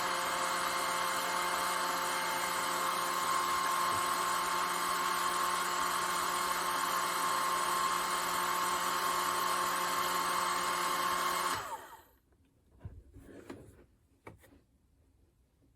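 Panasonic Nanocare EH-NA0J hair dryer running steadily, a rush of air with a steady whine over it. It switches off about twelve seconds in and dies away quickly, followed by a few faint clicks and knocks.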